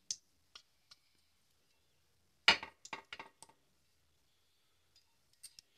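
A few light clinks and knocks of a silicone brush against a metal appe pan as oil is brushed into its cavities, with a quick run of several knocks about two and a half seconds in.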